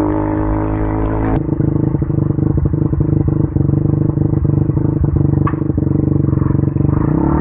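KTM Duke 200's single-cylinder engine through an Akrapovic exhaust, running at steady revs. About a second and a half in it changes to idling with a quick, even pulse, and the revs rise near the end as the bike pulls away.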